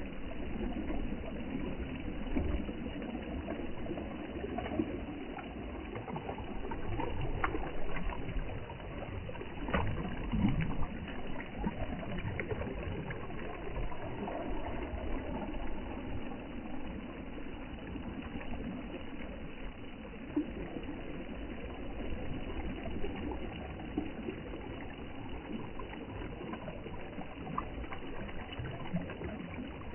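Seashore ambience: water washing and splashing over a continuous low rumble.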